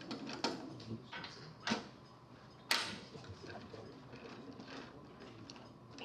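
A handful of scattered hard clicks and knocks as lathe fittings are handled and set, with the lathe itself not running. The sharpest knock comes about two and a half seconds in.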